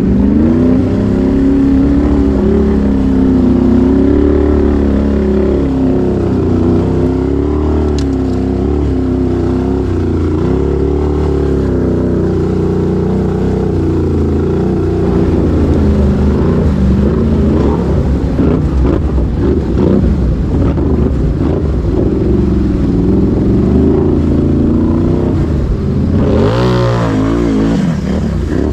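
Can-Am Renegade X-MR 1000R's V-twin engine running under changing throttle through a flooded mud trail, its pitch rising and falling. A splash of water rushes up near the end as the quad ploughs through a deep puddle.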